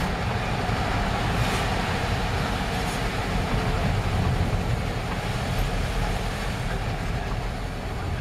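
Steady rumble and tyre hiss of a vehicle driving on a rain-soaked road, heard from inside the cabin.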